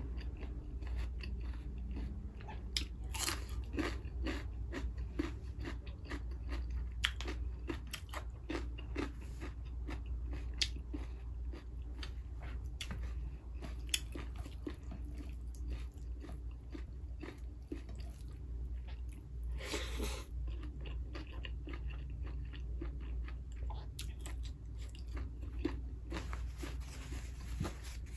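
Close-miked chewing and crunching of food, with many short wet mouth clicks and crackles, over a steady low hum.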